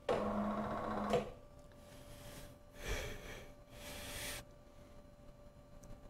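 A small electric motor runs with a steady hum for about a second, then stops. A few short scraping and clinking sounds follow as metal parts are handled.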